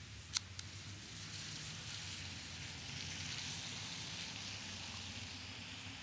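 A car passing by: a faint hiss of tyre and road noise that builds over the first couple of seconds and fades toward the end. One small click comes just after the start as the quick-release mount is slid into place.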